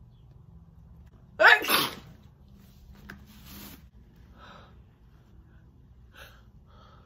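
A woman sneezes once, loudly, about a second and a half in, the sneeze sweeping down in pitch. A few much quieter breathy sounds follow.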